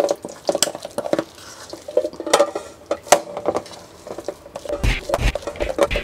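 Minced fish paste worked by hand in an enamel bowl: irregular wet squishing and smacking, then, in the last second or so, the paste slapped hard into the bowl in dull thumps about three a second, done to firm its texture.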